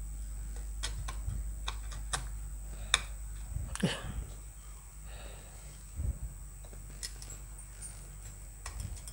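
Small parts and tools handled during hand assembly: irregular light clicks and taps, the sharpest about three seconds in. There is a brief scrape near four seconds and a dull knock about six seconds in, over a steady low hum.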